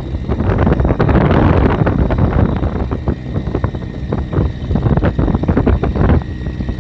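Wind buffeting the microphone over the rumble of an off-road vehicle driving across sand, with many short knocks and rattles.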